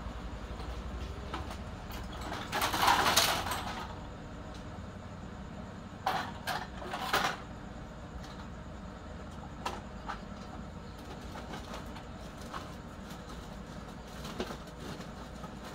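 Scrap computer motherboards clattering and scraping against one another as they are handled and packed into a woven plastic sack. A longer rustling clatter comes a few seconds in, followed by a quick run of sharp clacks and a few lighter knocks later.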